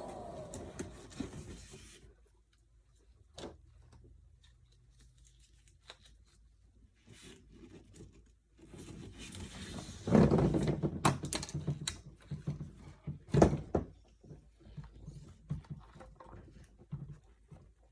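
Latex balloons being handled: irregular rubbing and squeaking of rubber with a few soft knocks, loudest in a cluster about halfway through. The electric balloon pump's noise fades out in the first two seconds.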